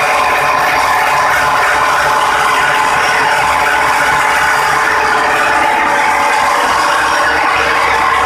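Old Belarus tractor diesel engine running steadily as it drives a belt-and-pulley flour mill (chakki). The engine, the spinning belts and pulleys and the mill together make a loud, even mechanical clatter.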